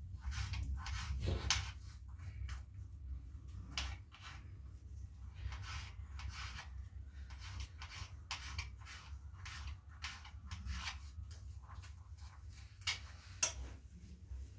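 Kitchen knife cutting raw potato held in the hand over a pan: a run of short, crisp cuts, a few each second with brief pauses.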